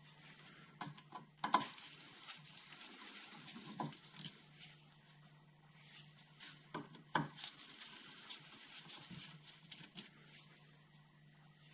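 Faint clicks and light rubbing of a Torx 20 driver and small metal bolts being undone and handled on the diesel fuel filter cap, with sharper clicks about one and a half and seven seconds in.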